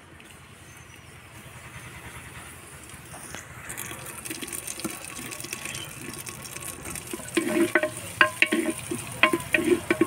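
Hot oil in an earthen clay pot begins to sizzle, the hiss building over the first few seconds, then sizzles more strongly once chopped onion goes in. From about seven seconds a wooden spatula stirring the onion knocks sharply against the clay pot several times.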